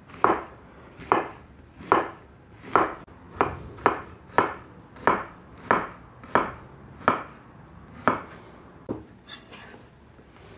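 Kitchen knife chopping onion on a cutting board: a steady run of sharp knocks, roughly one every two-thirds of a second, growing sparser and softer near the end.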